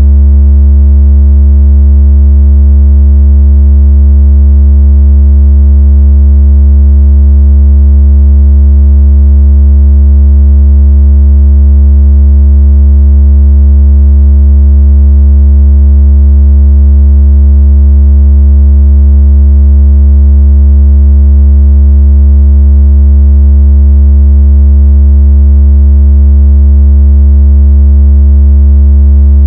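A loud, steady, deep synthesized tone with faint overtones, played without a break: a speaker water-ejection tone used to vibrate water out of a phone speaker.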